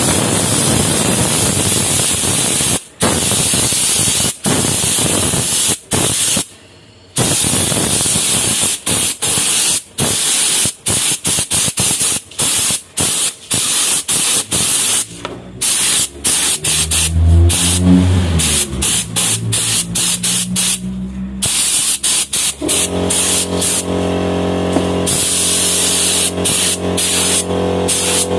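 Gravity-feed spray gun spraying a second coat of 2K clear coat onto a painted brake caliper. A loud air hiss cuts off and restarts many times as the trigger is released between passes. A steady lower hum comes in during the second half.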